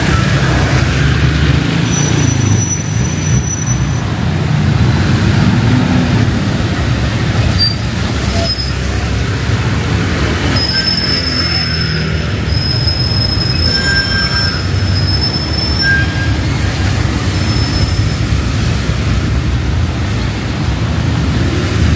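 Heavy rain and city traffic noise, steady and loud, with a thin high squeal that comes in briefly about two seconds in and again on and off for several seconds from about halfway.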